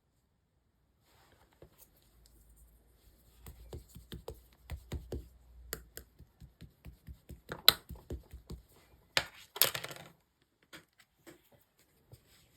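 Slime being squeezed and poked by hand, making a run of small sticky clicks and pops, with a few louder snaps in the middle.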